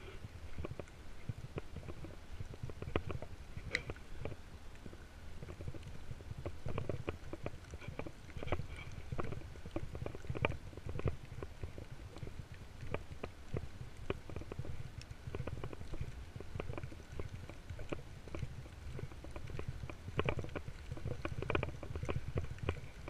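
Footsteps crunching through wet fallen leaves, heard as irregular soft crackles over a low, uneven rumble of movement noise on the walking camera.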